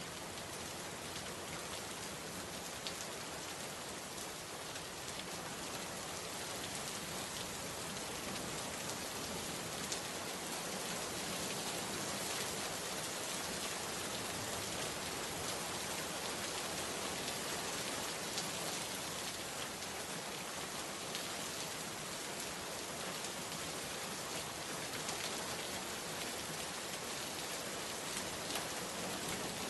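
Steady rain falling and pattering on surfaces, a continuous even hiss with scattered individual drop taps.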